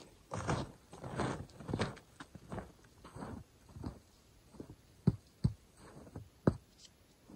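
Footsteps, about one every two-thirds of a second, followed by three sharp knocks in the second half.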